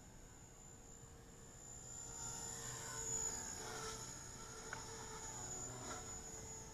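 Electric Oxy 2 Stretch RC helicopter flying at a low head speed of 3,700 RPM: a steady whine from its motor and rotors, growing louder between about two and six seconds in, its pitch bending up and down.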